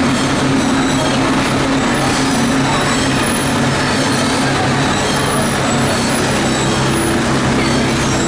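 Machinery of an onion ring production line running steadily: a loud, even mechanical drone with a constant low hum beneath it.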